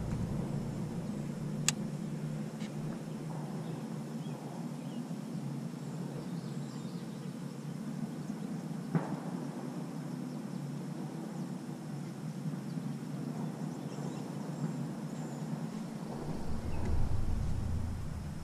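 Outdoor ambience on a calm lake with faint bird chirps, as an angler in a small aluminium boat retrieves a lure. Two sharp clicks sound, one about two seconds in and one about nine seconds in, and a low rumble comes in near the end.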